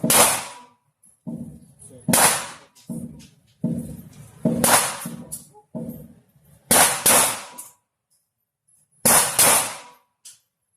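Gunshots at a shooting range: about five loud shots roughly two seconds apart, each with a ringing echo, the later ones coming as close pairs, with fainter knocks in between.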